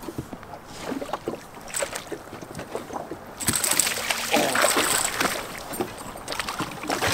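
Small knocks and handling noise, then, from about halfway through, some three seconds of splashing as a hooked bass thrashes at the surface beside the boat while it is landed.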